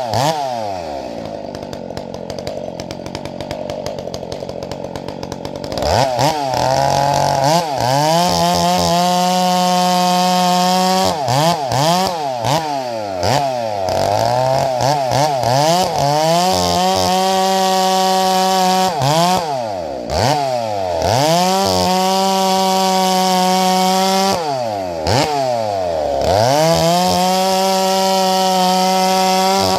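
Ported chainsaw with a 28-inch bar, idling for about the first six seconds, then repeatedly revved to full throttle and held at steady high revs through cuts while bucking Grand Fir, dropping back briefly between cuts, about five times.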